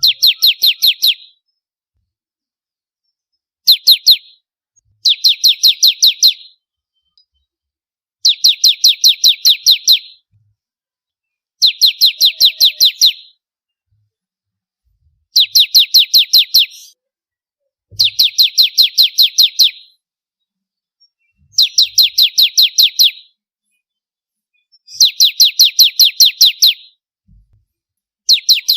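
Ciblek kristal, a prinia, singing loud, rapid trilled phrases of sharp, high repeated notes, about seven notes a second. Each phrase lasts one to two seconds, with short pauses between them, about nine phrases in all.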